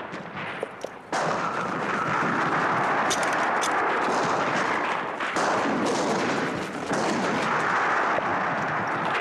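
Battle noise from a film soundtrack: gunfire within a dense, steady din that starts suddenly about a second in, with a few sharp shots standing out about three seconds in.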